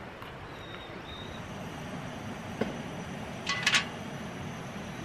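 Steady hiss with a single sharp click about two and a half seconds in and a quick run of three or four sharp clicks or clinks about a second later.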